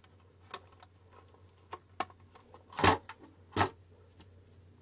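Scattered light clicks and taps from hands handling the e-bike battery pack's wires, connectors and plastic casing, with two louder knocks about three seconds in, over a steady low hum.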